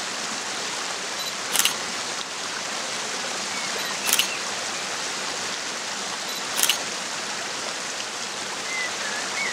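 Camera shutter clicking three times, about two and a half seconds apart, over a steady hiss of running water.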